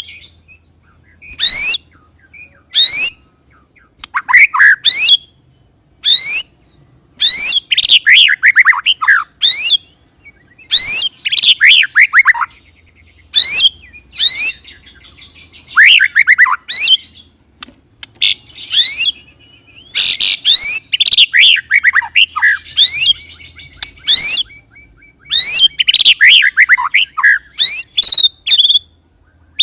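White-rumped shama (murai batu) singing in its rolling "ngerol" style. Rapid runs of sweeping whistled notes come in bursts of about one to two seconds, with short pauses between them.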